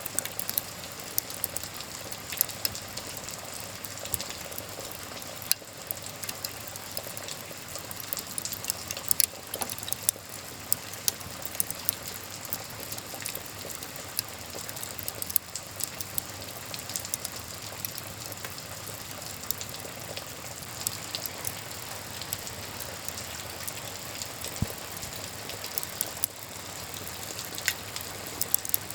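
Wood fire crackling with frequent sharp pops, over a steady hiss of rain.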